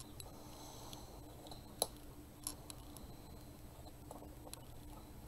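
Faint handling sounds of hands holding a freshly glued craft piece in place: a few light clicks and taps, the sharpest a little under two seconds in, over a low steady hum.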